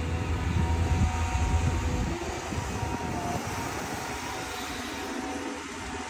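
Caterpillar hydraulic excavator working: its diesel engine runs under load with a steady higher whine over the rumble as it swings its boom. The rumble is loudest in the first two seconds, then settles to a steady run.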